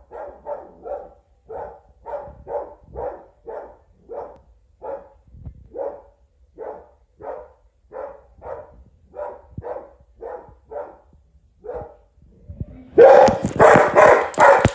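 Springer spaniel barking at a toy robot: a long run of short, fairly soft barks, about two a second, then much louder barking from about thirteen seconds in.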